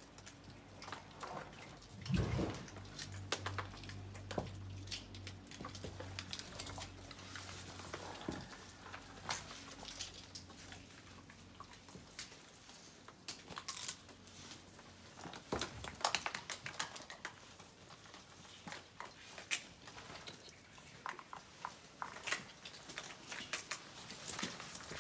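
Crocodiles crunching snail shells: scattered sharp cracks and clicks, with a louder knock about two seconds in and another about two thirds of the way through. A low steady hum underneath fades out about a third of the way in.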